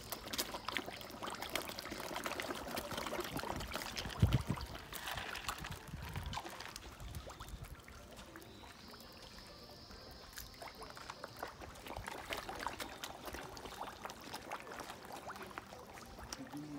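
A feeding frenzy of fish at the water's surface: a dense crackle of small splashes and slurps, busier in the first half and again near the end. A single low thump stands out about four seconds in.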